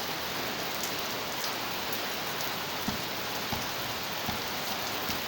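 Heavy downpour: a steady hiss of rain, with a few soft low taps of drops about three to five seconds in.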